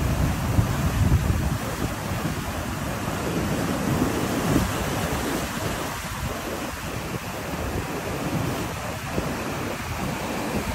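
Heavy hurricane-driven surf breaking and washing over rocks in a continuous roar of white water, with wind buffeting the microphone in a gusty low rumble.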